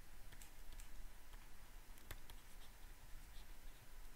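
Pen stylus writing on a tablet: faint scattered taps and light scratches as a word is crossed out and another handwritten.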